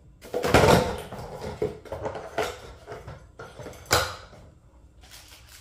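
Hollow plastic wheels of a toy ride-on ATV being slid onto the axle and handled, plastic clattering and knocking against plastic. A loud burst of clatter comes about half a second in, followed by a few sharper knocks, the last and loudest near four seconds.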